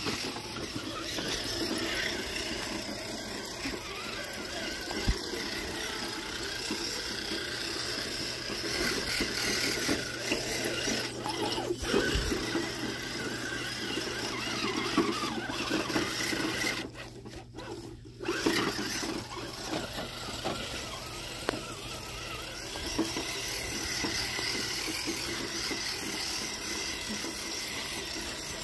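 Electric motor and gears of a radio-controlled toy truck whining steadily as it drives over grass, cutting out for about a second partway through.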